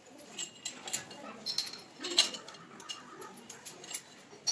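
Scattered light clicks and clinks of small metal parts being handled, about six irregular taps, some with a brief ringing note.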